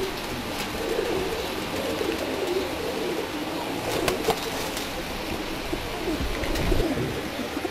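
Many domestic pigeons cooing together in a loft, their low wavering calls overlapping without pause, with a couple of sharp clicks about four seconds in.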